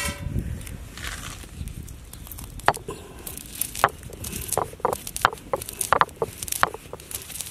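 Whole black peppercorns being crushed under a stone roller on a flat stone grinding slab. The stone rolls with a low rumble, and from about three seconds in the corns crack with sharp, irregular clicks that come faster toward the end.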